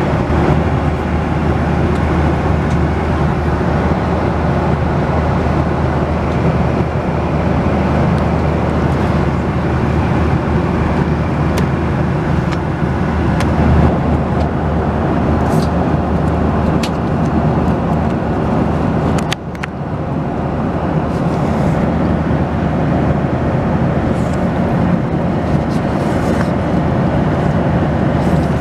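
Steady cabin noise of a Boeing 737-800 in cruise: the deep, even rumble and hiss of its engines and airflow, with a few faint clicks and a brief dip in level partway through.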